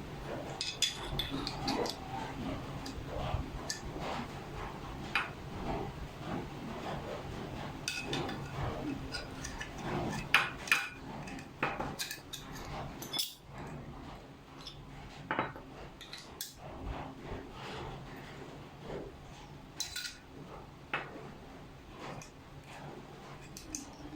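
Scattered, irregular metallic clinks and taps of an aluminium bike stem, its steel bolts and small tools being handled while the stem is fitted to a handlebar.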